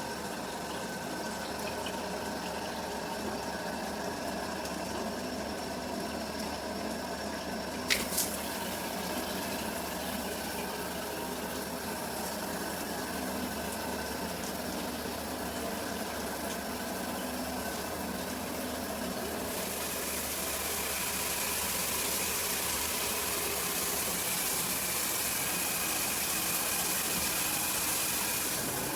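Shower water running steadily with a faint hum, a sharp click about eight seconds in, and the spray turning louder and hissier about two-thirds of the way through.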